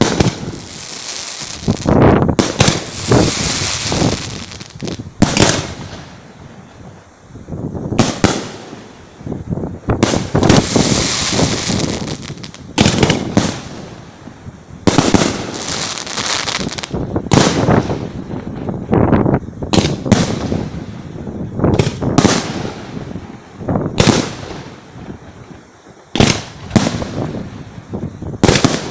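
Fireworks display heard from close range: aerial shells bursting with loud bangs every second or two, with crackling and the hiss of shells between the blasts.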